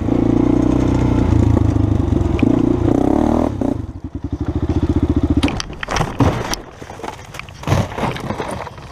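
Honda 400EX quad's single-cylinder four-stroke engine running under throttle, then dropping to a slow, lumpy putter about four seconds in as the quad tips over. Thuds, scrapes and clatter follow as the quad rolls over on gravel after its tyre caught a rock.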